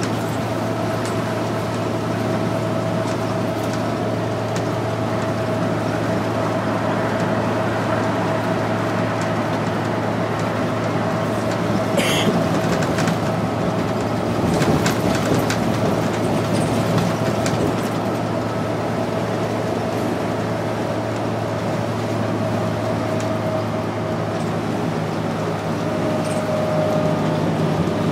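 Interior of a 2001 New Flyer C40LF transit bus cruising at highway speed: its Cummins C Gas Plus natural-gas engine and Allison B400R automatic transmission run with a steady low hum and a steady whine over road noise. A short squeal comes about twelve seconds in.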